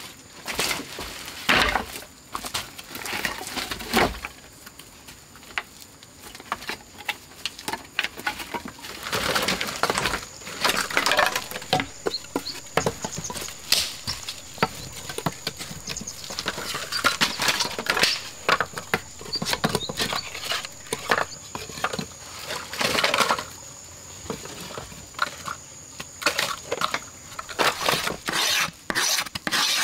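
Dry sticks and firewood knocking and clattering as a bundle is set down and the sticks are laid by hand into a clay fireplace, with a couple of sharp wooden knocks in the first few seconds. A steady high insect drone runs underneath.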